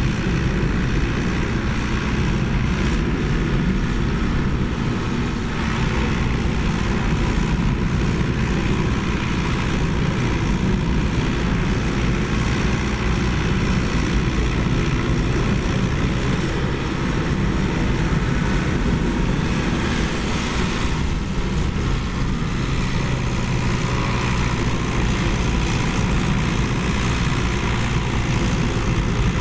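Komatsu PC75UU mini excavator's diesel engine running steadily as it digs and swings dirt with its bucket.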